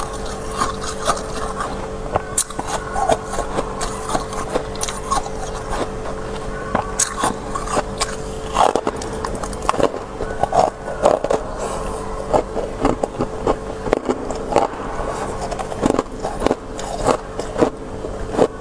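Soft freezer frost being scraped up by hand and crunched between the teeth: a dense, irregular run of crisp crunches and crackles over a steady low hum.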